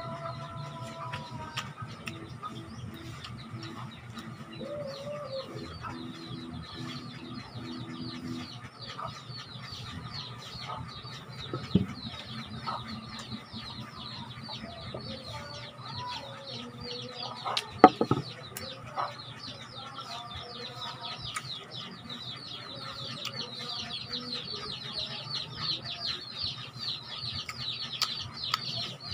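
Chickens clucking, with a dense, continuous high chirping that grows busier toward the end. Two sharp knocks, the louder one about 18 seconds in.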